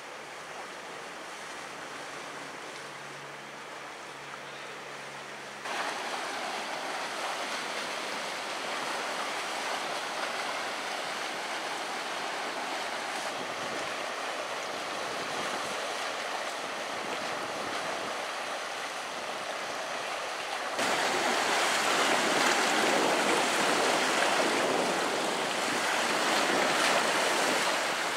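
Sea waves washing and breaking over rocky shore reefs, a steady rushing surf that steps abruptly louder about six seconds in and again about twenty-one seconds in.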